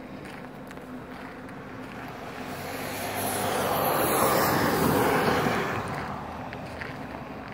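A vehicle driving past: its engine and tyre noise swells over a couple of seconds, peaks about four to five seconds in, then fades away.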